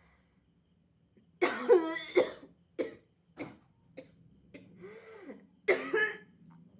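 A person with a head cold coughing in fits: a long harsh cough about a second and a half in, then a few short coughs, and another loud cough near the end.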